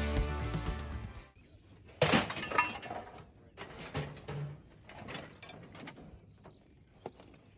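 Scrap metal being thrown and dropped: one loud metal clank with a ringing after it about two seconds in, then lighter clanks and rattles. Background music fades out at the start.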